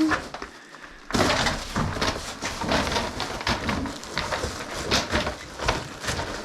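Rustling and clattering with many scattered knocks and clicks, starting about a second in, typical of tools and materials being handled during work.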